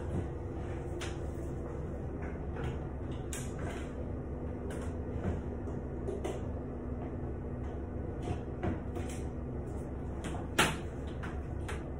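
Scattered light clicks and knocks over a steady low hum, the loudest click a little before the end.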